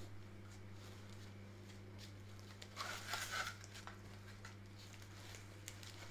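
Faint rustling and small clicks of a fabric bag and the straps of leg orthotic splints being handled and pulled out, with a brief louder rustle about three seconds in, over a steady low electrical hum.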